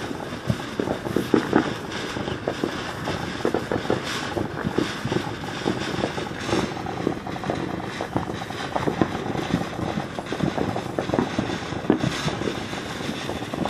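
Ground fountain firework burning: a continuous rushing hiss with many small irregular crackles.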